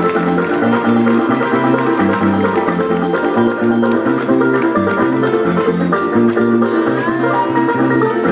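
Colombian folk dance music: plucked strings over a steady, repeating bass line, with maracas shaking.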